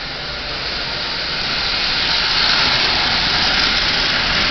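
Marx 897 toy steam locomotive, refitted with a 6-volt motor and pulling Lionel cars, running along the track. Its wheel and motor noise grows louder over the first two seconds, then holds steady.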